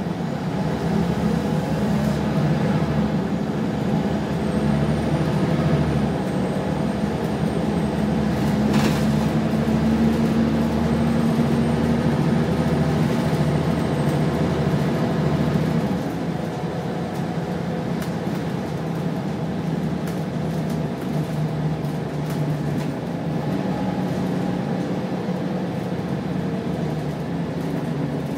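Scania bus engine and drivetrain heard from inside the passenger saloon of a Wright Solar single-decker: a steady low drone that builds as the bus pulls away and accelerates, then drops back to a quieter cruise about halfway through.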